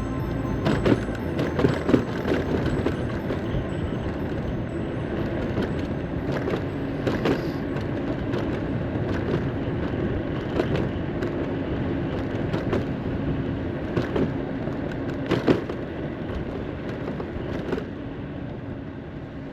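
Riding noise from an electric moped on the road: a steady rush of wind and tyres, broken by scattered short knocks and rattles.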